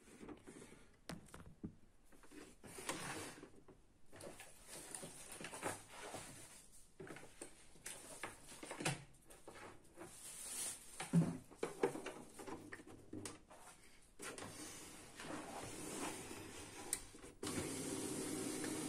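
Plastic clicks, knocks and rattles as the HP LaserJet Pro MFP M127fw laser printer's covers and paper tray are handled and closed. About a second and a half before the end, the printer's mechanism starts running with a steady hum, the test run after its worn pickup roller was replaced.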